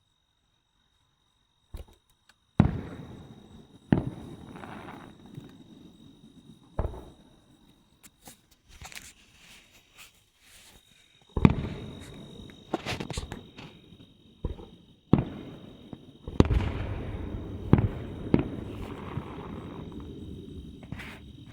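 Aerial fireworks going off: about a dozen sharp booms at irregular intervals, the first after about two and a half seconds, each dying away with a lingering rumble. The bangs come thickest in the second half.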